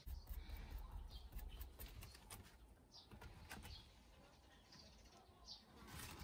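Faint clicking and scratching of a kitten's claws on a wooden fence post as it climbs. A few short bird chirps sound in the background, and a low rumble runs through the first two seconds.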